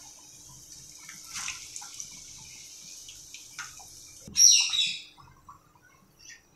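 Small balls of urad dal and rice batter sizzling in hot oil in an aluminium kadai: a steady high hiss with scattered crackles. The hiss cuts off about four seconds in and is followed by a loud, short, high chirp, the loudest sound here.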